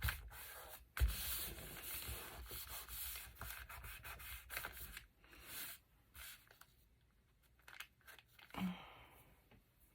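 Paper rubbing and rustling as a freshly glued sheet is smoothed and pressed down by hand, in irregular strokes that die away after about six seconds.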